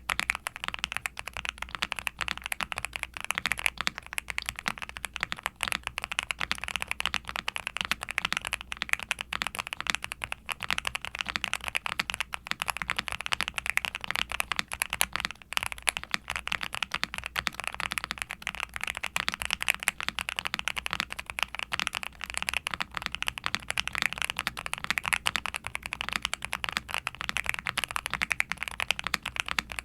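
Continuous fast typing on a Nuphy Kick75 mechanical keyboard with Kailh Cream Pro linear switches (full POM housing and stem), a polycarbonate plate, full foam dampening and double-shot ABS keycaps: a dense, even stream of key clacks.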